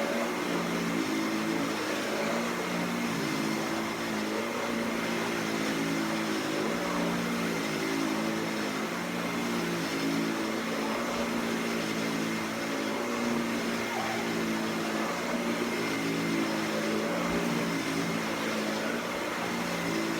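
Dyson DC65 Animal upright vacuum cleaner running while vacuuming, a steady motor and suction noise with a hum that shifts up and down in pitch every second or so.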